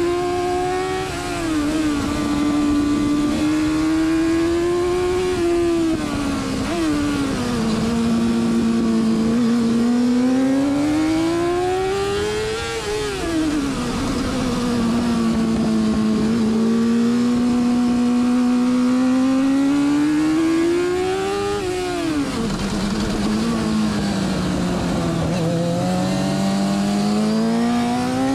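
Onboard sound of a carburetted pre-injection racing motorcycle engine at race pace. Its note climbs under acceleration and drops sharply about four times as the rider changes gear and brakes for corners, with wind rushing over the microphone.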